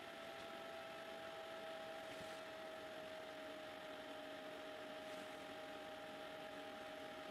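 Steady machine hum and hiss of running laboratory equipment, with a few faint steady tones and no sudden events.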